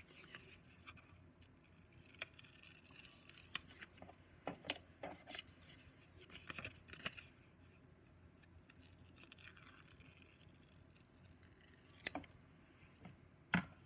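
Scissors snipping through graph paper in short, irregular cuts, with paper rustling between them and two sharper clicks near the end.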